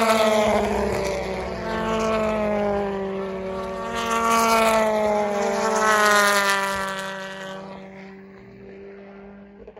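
BTCC touring cars' turbocharged engines passing at speed one after another, each note falling in pitch as the car goes by, then fading away over the last couple of seconds.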